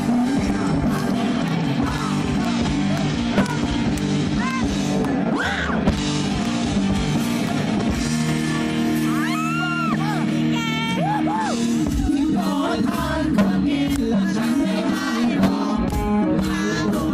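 Live rock-pop band playing over a PA system while a male singer sings into a handheld microphone.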